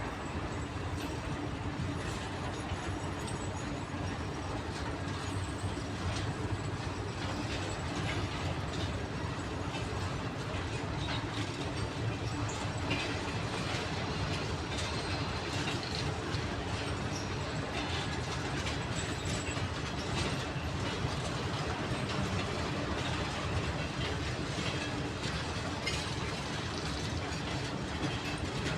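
TEM2 diesel shunting locomotive running steadily while moving railway wagons, with rolling wheel clatter and scattered short metallic clicks and squeaks.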